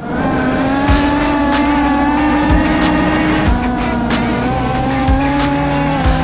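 Background music with a steady beat: low thumps about every second and a quarter, quick ticks between them, over held chords that shift partway through.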